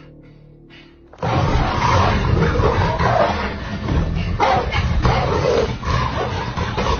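A dog snarling and barking aggressively. It starts suddenly about a second in and continues loudly.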